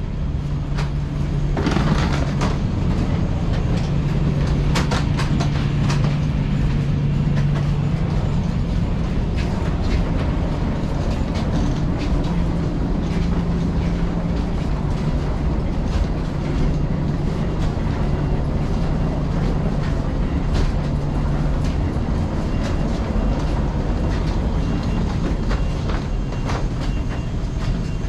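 Jet bridge ambience: a steady low mechanical hum and rumble, with scattered knocks and clicks as passengers walk through the aerobridge.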